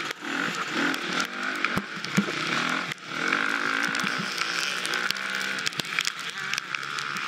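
Dirt bike engine running under load while riding, its pitch rising and falling as the throttle changes, with frequent sharp knocks and clicks from the bike working over rough, muddy ground.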